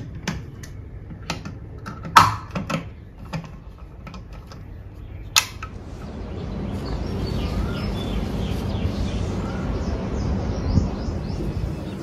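Sharp plastic clicks and taps as a flip-top water bottle's hinged lid and straw cap are handled, the loudest about two seconds in and another near five and a half seconds. From about six seconds a steady low background rumble rises and holds.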